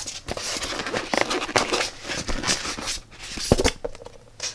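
Polystyrene foam shipping box being opened and a cardboard product box slid out of it: irregular scraping and rubbing of foam and card, with a sharp tap about three and a half seconds in.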